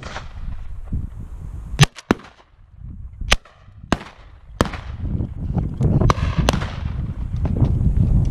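A string of shotgun shots, about eight, from guns firing at driven ducks passing overhead: two loud, close shots about two and three and a half seconds in, and the rest fainter and farther off.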